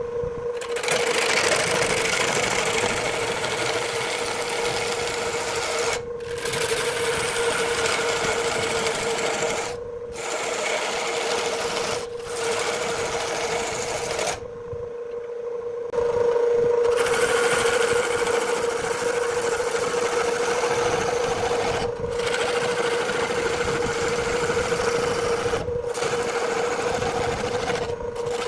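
Wood lathe running with a steady hum while a hand-held turning tool cuts into the spinning wood, scraping off shavings. The cutting noise drops away briefly several times, once for about a second and a half.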